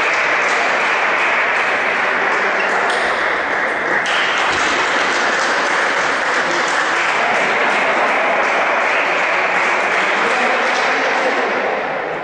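Spectators applauding, a dense steady clapping that fades out near the end.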